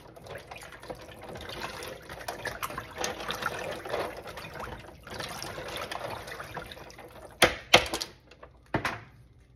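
Chunky chicken vegetable soup being stirred with a silicone spatula in a foil-lined pan, sloshing and swishing with a short pause about halfway. Three sharp knocks follow near the end and are the loudest sounds.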